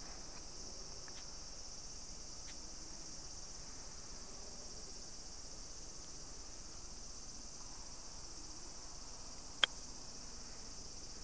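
A single crisp click about nine and a half seconds in: a 52-degree wedge striking a golf ball on a low running chip shot. A steady high-pitched insect chorus drones underneath throughout.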